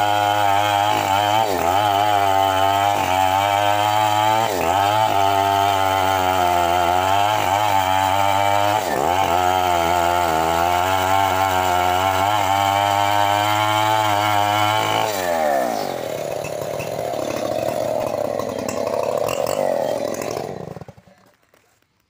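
Stihl MS 381 two-stroke chainsaw running at full throttle, cutting through a thick teak trunk, its pitch dipping briefly a few times as the chain is loaded. About fifteen seconds in the revs fall away; it runs lower and unsteadily for a few seconds, then the sound cuts off near the end.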